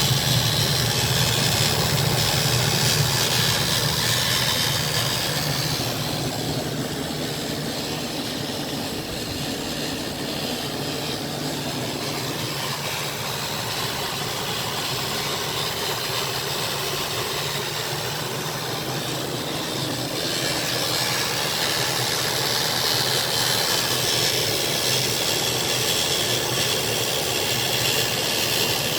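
2001 Ford E250 van's Triton engine running with a weird noise that its owner cannot place: a steady low hum under a strong hiss. The sound is louder for the first few seconds, eases off, then swells again about two-thirds of the way through.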